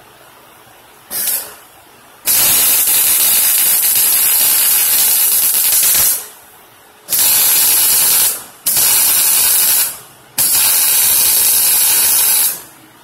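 MIG welding arc hissing in bursts: a short blip about a second in, then four welds of roughly one to four seconds each, each starting and stopping abruptly as the trigger is pulled and released.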